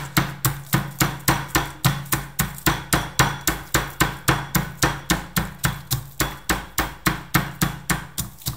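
Pestle pounding garlic cloves in a mortar: steady, even thuds at about four a second, crushing the garlic toward a fine paste.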